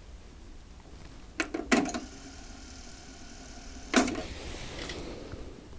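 Aiwa AD-S950 cassette deck's transport mechanism: a pair of clicks about a second and a half in as it engages, then a steady motor whir as the tape winds fast. Another click about four seconds in stops the wind, and the whir dies away.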